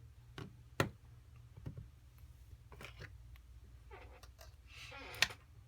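Small clicks and taps of tools and phone parts being handled during an iPhone repair, the sharpest about a second in. Near the end a short scratchy rustle ends in a sharp click, over a low steady hum.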